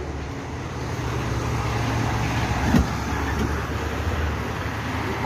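Street traffic: a vehicle engine running with a steady low rumble under road noise, with a brief thump about three seconds in.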